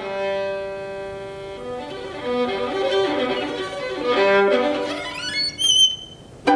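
Solo violin playing: a held note, then a short moving phrase, then a quick run of slides upward to a very high, shrill note near the end.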